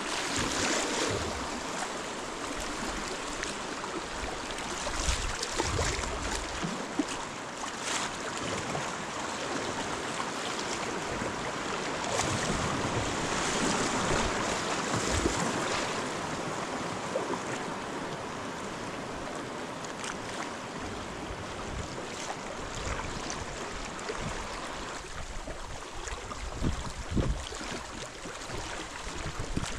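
River water rushing steadily past a kayak on a riffle, a constant hiss of moving water that swells a little about halfway through. Scattered low thumps come near the start and again near the end.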